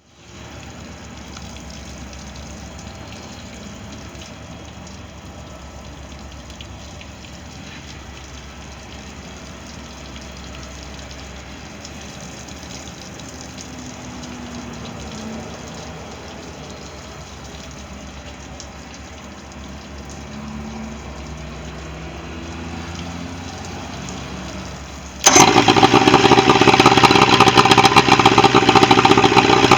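A pontoon boat motor on a boat with a bad starter: a steady low running hum, then about 25 seconds in a sudden loud, rough mechanical noise cuts in and keeps going.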